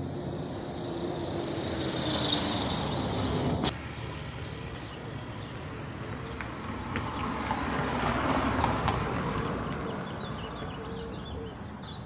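Street traffic: passing vehicles whose engine and tyre noise swells and fades twice. There is a single sharp click about a third of the way in, and birds chirp near the end.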